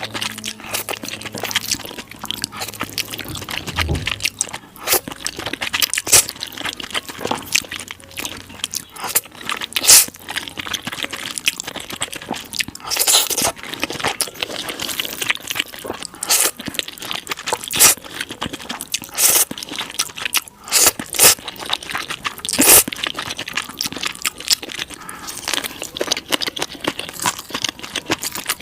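Close-miked eating: repeated crunchy bites and chewing of crisp food, many irregular sharp crackles, with one especially loud crunch about ten seconds in.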